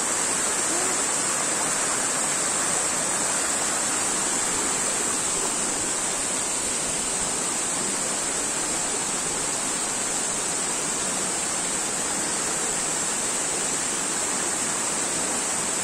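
Steady rush of water from a tall waterfall plunging into its pool and running over the rocks of the stream below.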